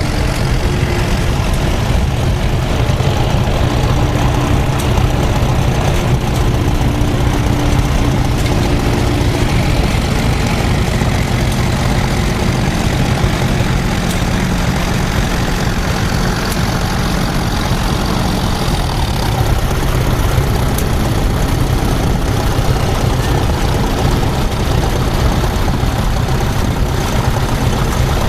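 Tractor engine running steadily at low revs.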